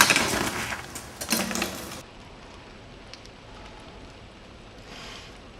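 A burst of clattering knocks and scrapes from a BMX bike on the street for about two seconds, then a faint steady hiss with a few small ticks.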